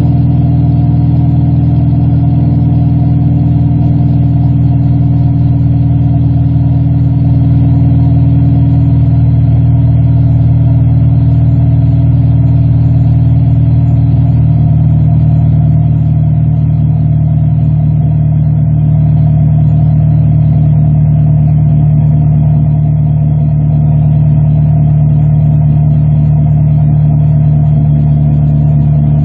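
2006 Honda Civic Si's K20 four-cylinder engine idling steadily through a DNA Motoring full-race catback exhaust, running after a cold start.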